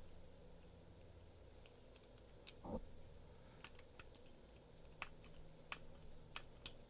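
Faint, irregular small clicks of a key being turned and worked in an antique Russell & Erwin lever padlock, with a soft knock a little before the halfway point and the clicks coming more often in the second half. The shackle does not release: the key turns but does not open the lock.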